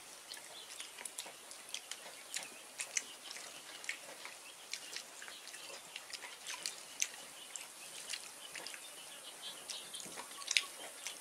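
Two people eating rice and curry with their hands: many small, irregular wet clicks and smacks from chewing and from fingers mixing rice on banana leaves.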